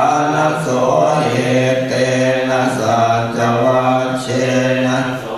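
Buddhist chanting in Pali: a group of voices reciting verses together in a low-pitched, near-monotone chant.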